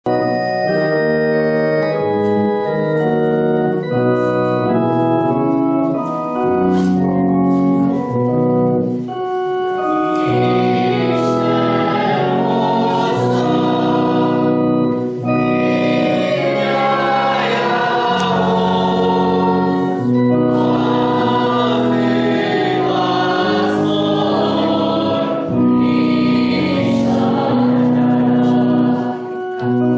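Church organ playing a processional hymn in steady held chords. Voices join in singing about ten seconds in.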